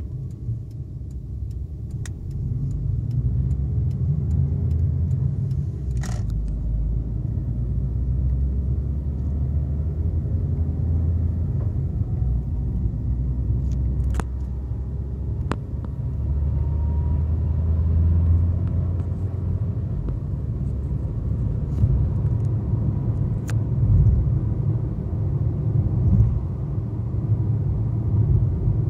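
Fiat Panda 1.2 with Dualogic gearbox heard from inside the cabin: a steady low engine and road rumble as the car accelerates, with the robotised gearbox changing up on its own into third and then fourth. A few faint sharp clicks sound through it.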